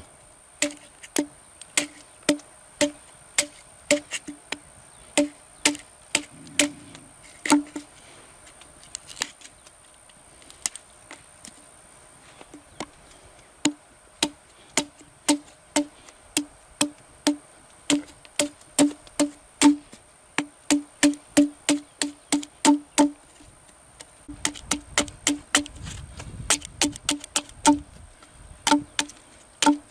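A large knife chopping down into a mesquite stick held upright on a wooden log, splitting and shaping it into a spatula. It makes a long run of sharp, hollow wooden knocks, about one to two a second, coming faster in the middle stretch.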